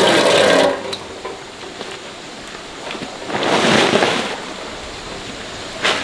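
Water from an outdoor tap splashing into a metal pot, stopping under a second in; about three and a half seconds in, a plastic woven feed sack rustles for about a second as it is picked up, with a brief crinkle near the end.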